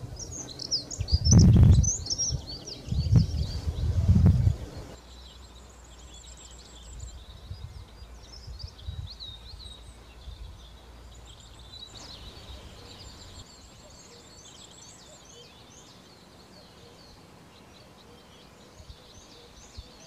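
Small songbirds singing quick, high warbling phrases, with a few loud low rumbles in the first five seconds.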